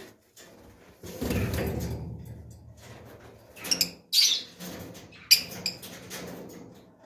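Pet lovebirds moving about their cage: irregular clicks, knocks and rustling, with a few short, sharp high calls.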